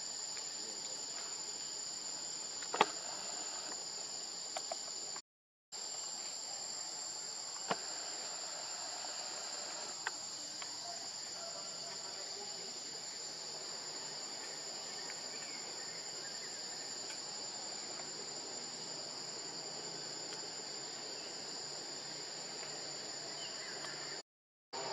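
Steady, high-pitched chorus of insects, a continuous shrill buzz that does not change. A sharp click comes about three seconds in and a fainter one about eight seconds in, and the sound drops out for a moment about five seconds in.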